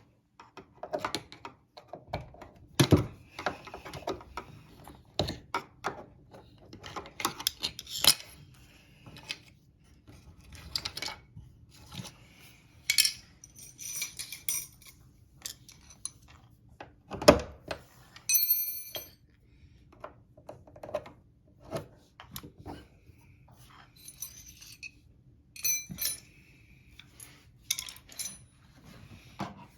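Fridge-freezer door being handled: a string of irregular clicks and knocks, with glassy clinks and short ringing rattles from items on the door shelves.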